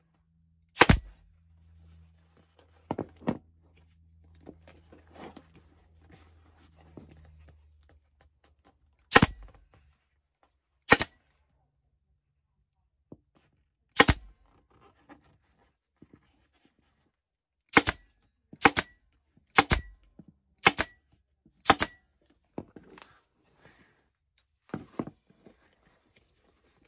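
Pneumatic air stapler firing staples to fasten a mower seat cover, nine sharp snaps: four spaced several seconds apart, then five in a row about a second apart. Faint rustling of the cover being handled between shots, and a low hum that stops about eight seconds in.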